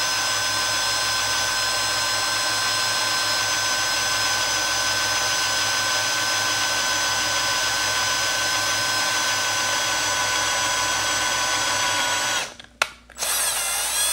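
Small electric drill running steadily at full speed, boring a pilot hole for a tap into the rivet post of a Hot Wheels car body. About twelve seconds in it stops, followed by two or three short bursts on the trigger.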